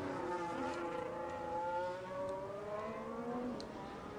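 Formula 1 car's turbocharged V6 engine at high revs in a race broadcast, its pitch slowly rising over the first couple of seconds and then easing off.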